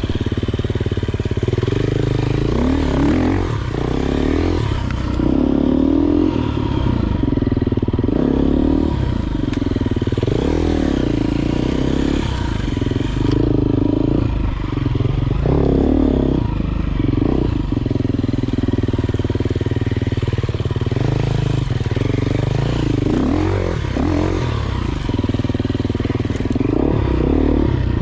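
Enduro dirt bike engine running hard, its revs rising and falling again and again.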